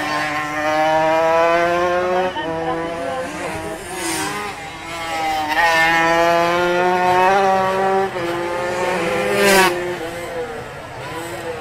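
125 cc two-stroke underbone racing motorcycles accelerating, their engine note climbing steadily in pitch. There are about three rising runs, the last one brief near the end.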